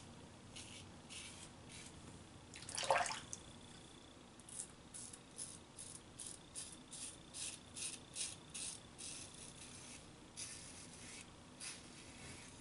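Safety razor scraping through lathered stubble in short, faint strokes, about three a second in runs, with one louder stroke about three seconds in.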